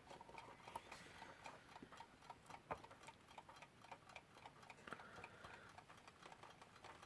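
Westclox Lark wind-up alarm clock ticking faintly and steadily as its movement runs, with one sharper click about two and a half seconds in.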